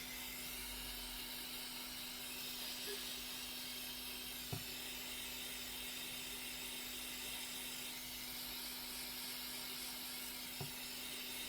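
Steady background hiss with a low electrical-sounding hum, broken by two faint small taps, one about halfway through and one near the end.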